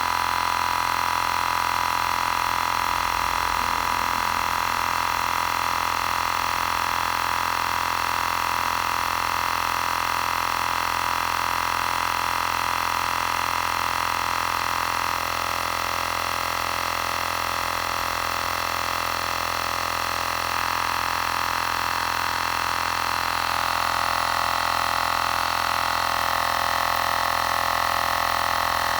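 Xiaomi Portable Electric Air Compressor 2 running continuously while inflating a spare tyre: a steady electric-motor and pump drone with a strong tone around the middle of the range. It drops slightly in level about halfway through and comes back up a little near the end.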